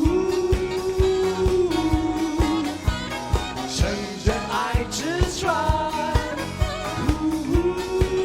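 Live pop band music with a steady drum beat of about two hits a second. Long held melody notes come near the start and again near the end, with a bending melodic run in between.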